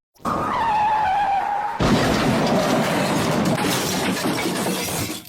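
A speeding car's tyres squeal on a wet corner, a whine falling in pitch. About two seconds in comes a sudden crash as it hits another car, and loud noise carries on for about three seconds after the impact.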